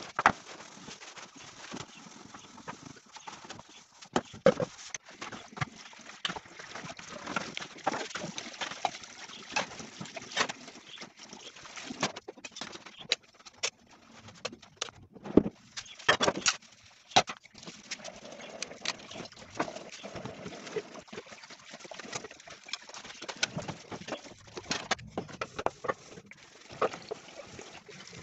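Dishes being washed by hand in a kitchen sink: a sponge scrubbing metal baking pans, with many scattered knocks and clinks of pans against the sink and dishes, and tap water running over them at times.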